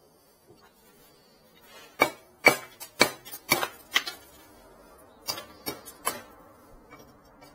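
Claw hammer striking a piece of concrete paving slab, chipping bits off it: a fast run of about eight sharp knocks over two seconds, then four more a second later.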